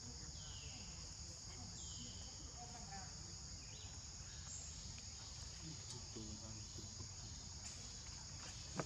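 Steady, high-pitched chorus of forest insects such as crickets or cicadas, with a few short falling chirps in the first few seconds and one sharp click just before the end.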